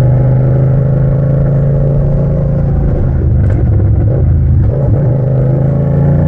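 Yamaha MT-07's parallel-twin engine running loud through a bare straight-pipe exhaust tip of just over 2 inches, held on a steady light throttle at first, then the note wavering with a single sharp crack about three and a half seconds in.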